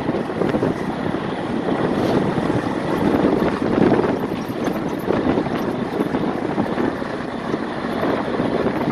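Steady, dense ambient noise of a busy waterside fish market, with wind buffeting the microphone.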